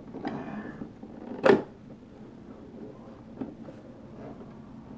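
An action-figure box being handled in the hands: one short, sharp rustle about a second and a half in, then a few light clicks.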